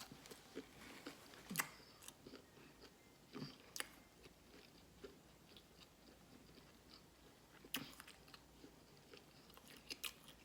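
Faint close-up chewing and biting of shrimp: scattered soft clicks and small crunches, a few louder ones about a second and a half in, near four seconds and near eight seconds.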